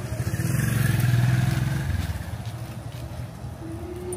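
A motorcycle engine passing close by: its low, pulsing rumble swells to a peak about a second in, then fades away.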